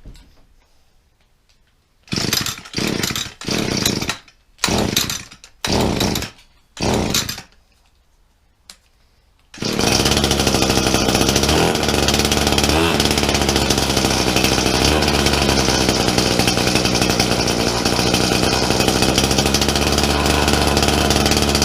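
Echo SRM-230 brush cutter's two-stroke engine being pull-started: six quick pulls on the recoil starter cord, then about nine and a half seconds in it catches and runs steadily. It holds at idle on a newly fitted carburetor whose idle screw has just been turned up.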